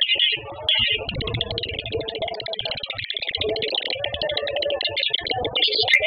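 Recorded swiftlet calls played as a lure track for attracting swiftlets: a dense, rapid, high-pitched twittering chatter with a lower wavering tone beneath it.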